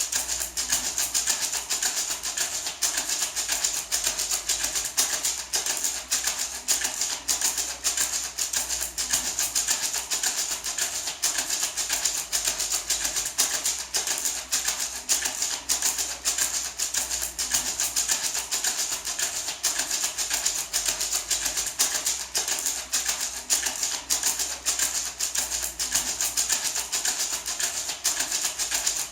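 Handmade gourd maraca shaken steadily and fast, giving a dense, even stream of crisp rattling clicks.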